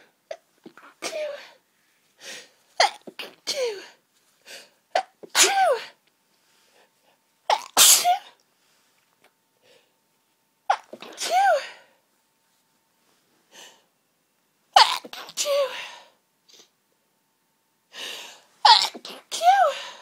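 A woman sneezing over and over in a hayfever sneezing fit: about seven hard sneezes, each with a short drawn-in 'ah' before the burst, separated by brief silent pauses.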